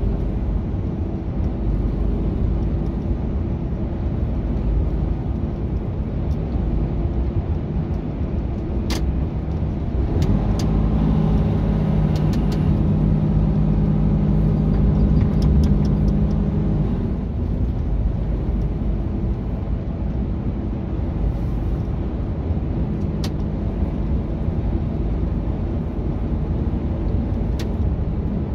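Mercedes-Benz Actros semi-truck heard from inside the cab while driving at motorway speed: a steady engine and road rumble, with a louder humming drone for several seconds in the middle.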